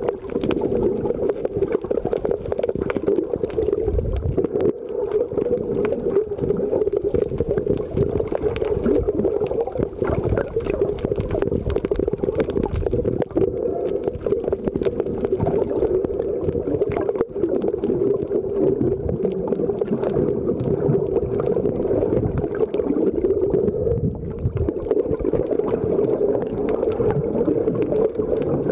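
Steady, muffled underwater noise recorded with the camera submerged, with many scattered short clicks.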